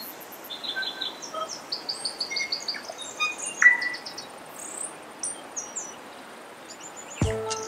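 Several birds chirping and calling in short, scattered notes over a steady hiss of flowing river water. Music with a beat comes in near the end.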